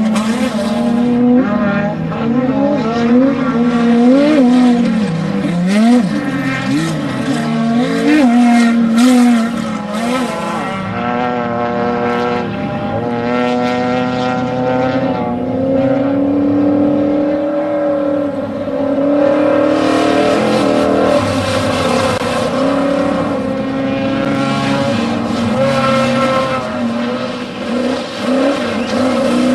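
Off-road desert race vehicle engines. For about the first ten seconds the revs rise and fall again and again, then a steadier engine note climbs slowly and holds.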